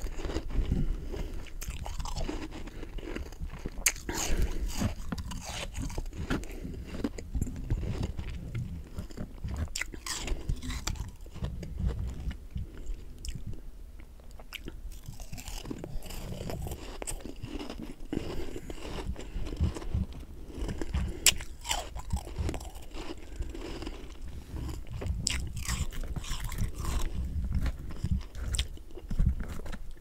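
Close-miked chewing of humidifier freezer frost, a powdery ice, with many irregular crisp crunches throughout.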